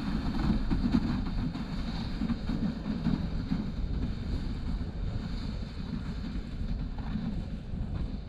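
Wind buffeting the microphone: a steady low rumble that rises and falls, with a faint hiss of wind over it.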